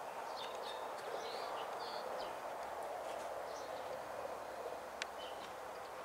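Outdoor garden ambience: small birds chirping here and there over a steady background hiss, with one sharp high note about five seconds in.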